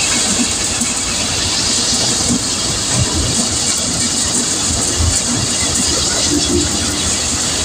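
Groundnut thresher running as green groundnut plants are fed into its drum, stripping the pods. It makes a loud, steady mechanical din with a strong hiss over it.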